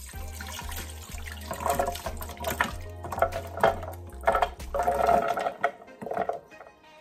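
A silicone spatula scraping milk-soaked chopped walnuts out of a bowl into a blender jar: irregular wet scrapes and splats of nuts and milk dropping in, heaviest from about a second and a half in.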